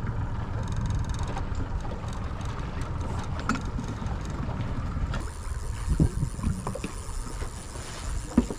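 Steady low rumbling noise aboard a boat, with a few light knocks; the sound changes abruptly about five seconds in.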